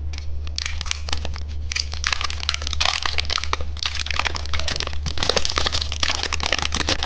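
Candy packaging crinkling and crackling as it is handled, in a dense irregular run of small crackles, over a steady low hum.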